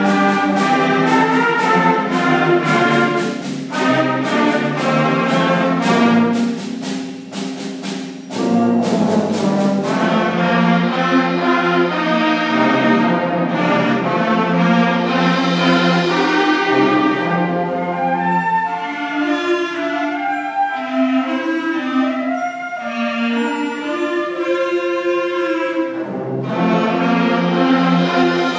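School concert band of woodwinds and brass playing, with regular drum strikes through roughly the first third. A quieter, thinner passage follows in the second half before the full band comes back in near the end.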